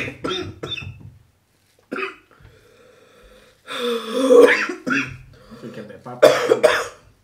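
A woman coughing hard in fits while choking on food: a run of coughs at the start, a single cough about two seconds in, a longer bout around four seconds, and a last loud pair of coughs near the end.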